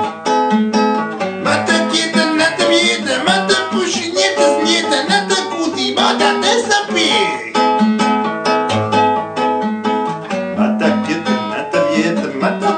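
Acoustic guitar strummed steadily in chords, with a man's voice singing along without clear words, strongest in the middle of the passage.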